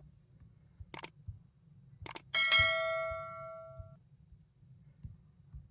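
A single bell-like chime that rings out and fades over about a second and a half, preceded by two pairs of short clicks.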